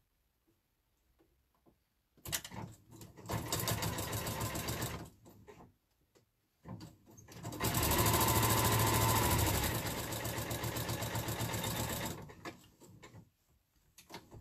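Electric sewing machine stitching fabric squares together in two runs: a burst of about three seconds, then, after a short pause, a longer and louder run of about five seconds, with the needle's rapid, even stitch rhythm. Faint handling clicks come before, between and after the runs.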